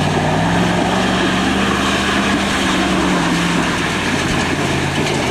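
Ford F-250 pickup's diesel engine running steadily as the truck drives through a shallow muddy pond, with the wash of water around it; the engine note eases down a little after about three and a half seconds.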